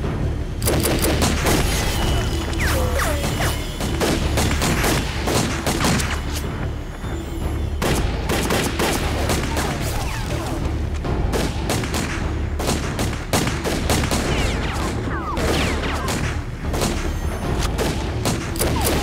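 Film gunfight: dense, continuous volleys of rifle fire from several guns with occasional booms, over a dramatic background music score.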